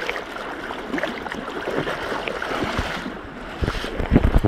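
River water rushing and splashing as a steady noisy wash, with a cluster of short low thumps near the end.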